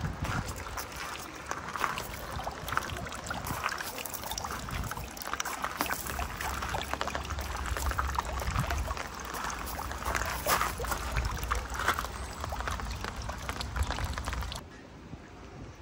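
Rain falling and splashing in a dense patter of small ticks, with wind rumbling on the microphone. The sound drops suddenly to a quieter hiss near the end.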